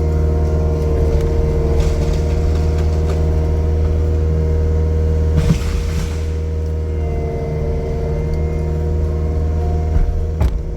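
Heavy diesel engine running steadily at constant speed, with a brief hiss about halfway through.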